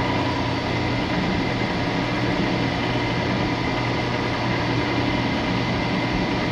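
Vertical milling machine's spindle motor running steadily while an edge finder is used to locate the edge of the work: a constant hum with a faint steady high whine.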